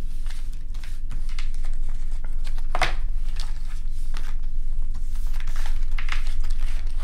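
Tarot and printed message cards being gathered up and stacked by hand on a table: irregular sliding, rustling and light tapping of card stock, the clearest rustle about three seconds in. A steady low hum runs underneath.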